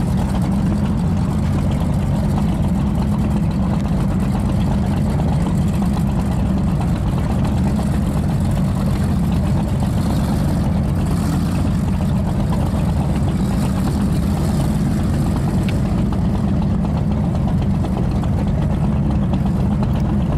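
Offshore powerboat engines running steadily at low speed: a deep, even engine drone with no change in pitch.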